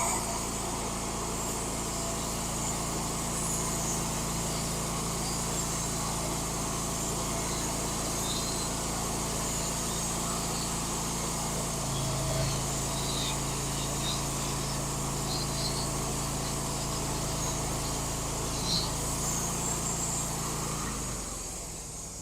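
Woodmizer LT15 portable sawmill running steadily through a cut with a new band blade. A low hum strengthens about halfway through, and the sound eases off shortly before the end.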